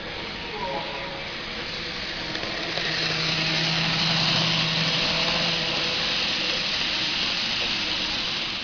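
A train running: a steady mechanical rushing noise that builds to its loudest in the middle, with a steady low hum for a few seconds in the middle.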